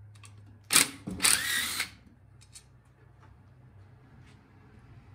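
Craftsman cordless driver backing out an exhaust bolt on a Honda EU2000i engine: a short burst about a second in, then a longer run lasting under a second with a rising motor whine. A few faint clicks follow.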